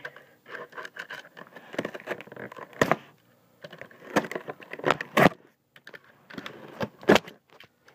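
Cardboard shipping box being handled and pulled open by hand: irregular taps, clicks and scrapes, with a few sharper knocks at about three, five and seven seconds in.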